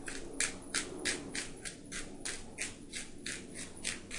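Hand pepper mill grinding peppercorns, a quick run of scratchy crunching strokes, about four a second, one for each twist of the mill.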